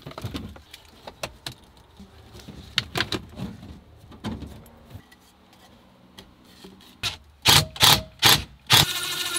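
Light clicking and rubbing as the portable air conditioner's plastic vent hose and housing are handled and fitted. Near the end come four loud, sharp bursts from a cordless drill driving screws to lock the unit in place, and then the drill's motor runs steadily.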